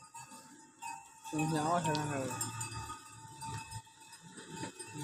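A cow lowing once, about a second in: one long call that falls in pitch, over a faint steady high ringing tone.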